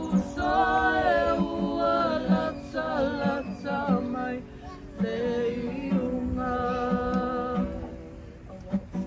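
Voices singing a slow song together in long held notes, with a ukulele playing softly underneath; the singing quietens near the end.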